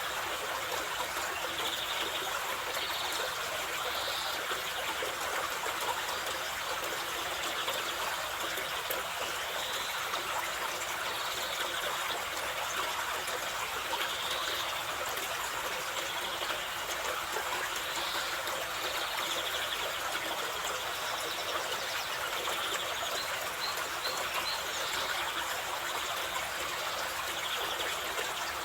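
Carpathian mountain river rushing steadily over stones, with small birds chirping now and then over the water.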